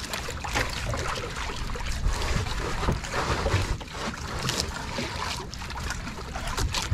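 Wind on the microphone and choppy sea water lapping against a small wooden outrigger boat, with a few light knocks.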